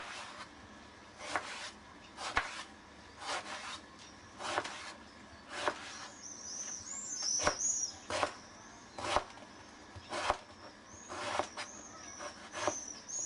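Kitchen knife cutting through an eggplant and striking a plastic cutting board, about one cut a second. Birds chirp in the background from about six seconds in.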